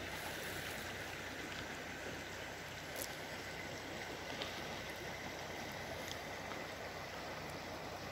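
River water flowing, a steady rushing hiss, with a few faint clicks scattered through it.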